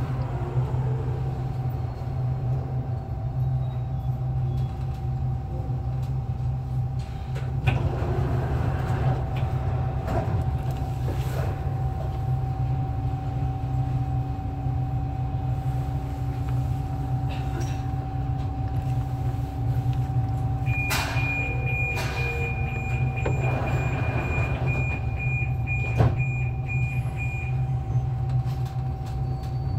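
Alstom Metropolis metro train running through a tunnel, heard from inside the car: a steady low rumble with a constant tone over it and scattered knocks. A higher steady tone comes in about two-thirds of the way through and stops a few seconds later.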